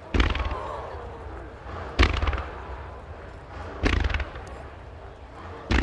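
Aerial firework shells bursting: four sharp booms about two seconds apart, each followed by a rumbling, crackling echo.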